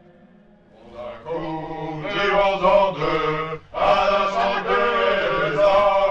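A group of men singing a rowdy drinking song together in chorus. It starts about a second in and breaks off briefly for a breath before four seconds.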